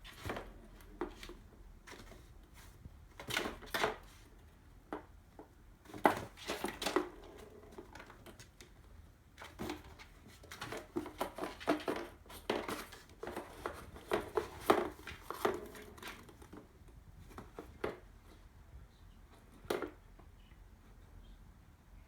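Ping-pong balls knocking and rattling against a cardboard box as they are batted about, in irregular flurries of light knocks, busiest in the middle of the stretch.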